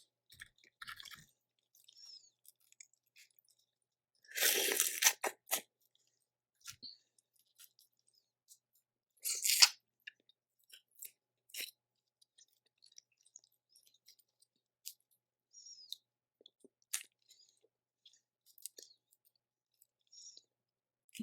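Close-up eating of boiled crawfish and crab: soft wet chewing and small clicks, with two loud cracks of shell, one about four seconds in lasting over a second, and a shorter one near ten seconds.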